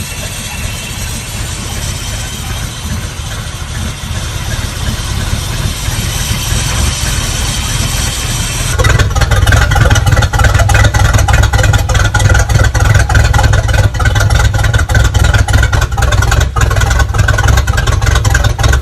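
Newly installed replacement MerCruiser marine engine running in the boat, steady at first, then stepping up suddenly about nine seconds in to a louder run with a heavier low exhaust rumble.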